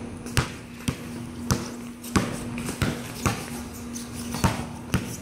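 A Wilson basketball being dribbled on a concrete court: a steady run of sharp bounces, about two a second, over a faint steady hum.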